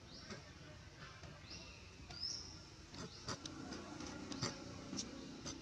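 Faint outdoor forest ambience with a few short, high chirps that rise in pitch and scattered sharp clicks.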